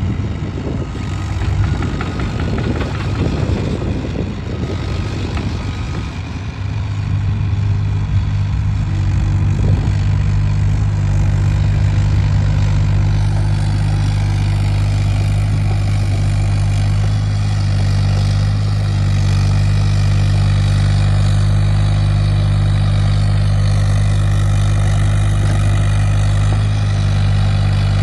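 Hyundai HX35Az mini-excavator's diesel engine running with a steady low hum, with irregular knocks and scraping over it for the first several seconds. About seven seconds in it grows louder and holds steady.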